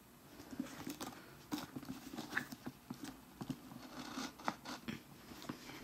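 Hands handling a black Timberland 6-inch premium waterproof boot, turning its rubber lug sole and fingering the laces and tag. It makes a stream of small, irregular taps, scratches and rubbing noises.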